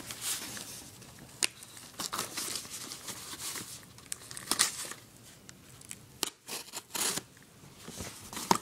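Product packaging being opened by hand: irregular tearing and crinkling of cardboard and plastic, with several sharp clicks and snaps.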